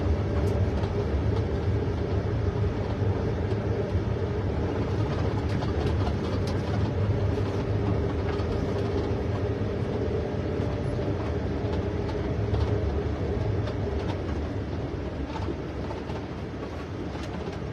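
Engine and road noise heard from inside a moving tour vehicle: a steady low rumble that eases off a little near the end as it slows.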